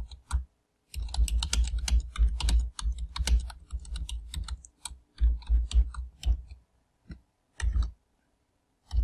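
Typing on a computer keyboard: a quick, dense run of keystrokes lasting about four seconds, then shorter bursts of keystrokes with pauses between.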